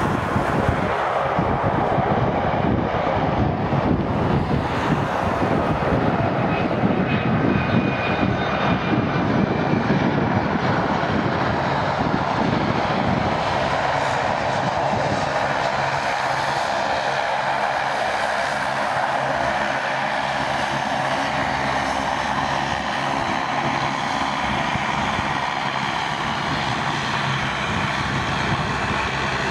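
Boeing 757-200 jet airliner's engines on landing approach as it passes low overhead: a loud, full jet rumble with a faint falling whine in it. From about thirteen seconds in the sound settles to a steadier, thinner jet noise as the airliner flares low over the runway.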